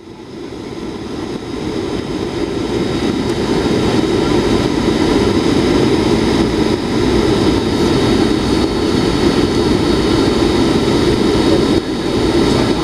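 Steady cabin noise of a jet airliner in flight: engine hum and rushing air, swelling up over the first couple of seconds and then holding level.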